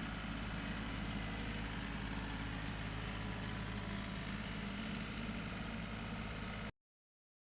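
Tractor engine running steadily at a constant speed; the sound cuts off abruptly near the end as the recording ends.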